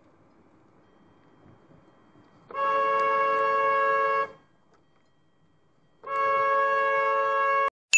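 Car horn sounding two long, steady honks, each about a second and a half, with a short gap between them. A sharp, bright ding right at the end.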